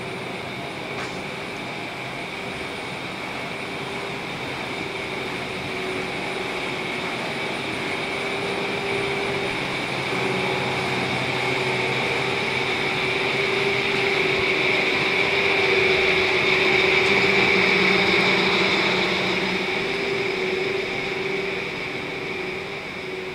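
Air-conditioning units and exhaust fans running with a steady hum and whir, growing louder about two-thirds of the way through as they are passed close by, then easing off.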